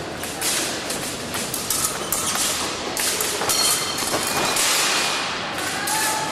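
Fencers' footwork on a metal piste: quick, irregular stamps, knocks and clatter over a steady hall din.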